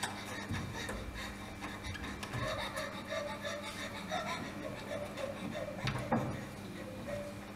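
Quiet stage-hall ambience with a steady low hum and faint distant murmuring, and a few soft knocks, the clearest a pair about six seconds in.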